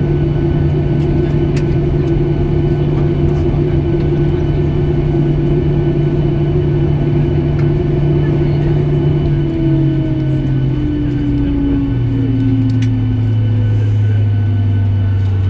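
Boeing 737's CFM56 jet engines heard from inside the cabin, running steadily, then winding down in pitch from about ten seconds in, as when the engines are shut down at the gate.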